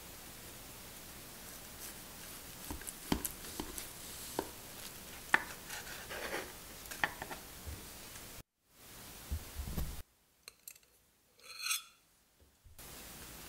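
A knife cutting through a soft, airy yogurt cake on a wooden board, with several sharp clicks as the blade meets the board. After a brief cut-out, a fork scrapes into a cake slice on a plate near the end.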